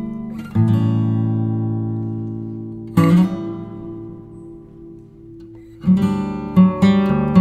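Background music of strummed acoustic guitar chords. Single chords ring out and fade, one about half a second in and another about three seconds in, then quicker strumming starts near the end.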